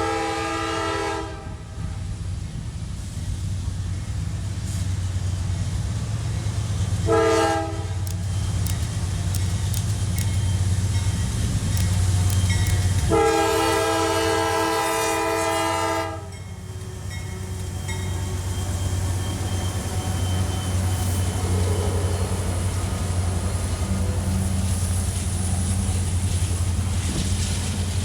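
Diesel freight locomotive's multi-chime air horn. A blast cuts off about a second in, a short toot comes about seven seconds in, and a long blast runs for about three seconds from around thirteen seconds. The train's steady low rumble carries on underneath.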